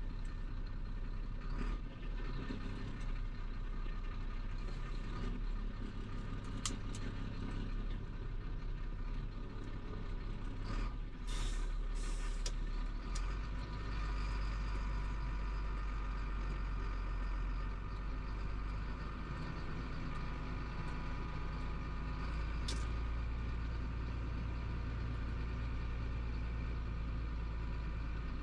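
Heavy truck's diesel engine running steadily, heard from inside the cab of a Chenglong 375. Its low hum strengthens about halfway through, and a few short sharp hisses or clicks come near the middle.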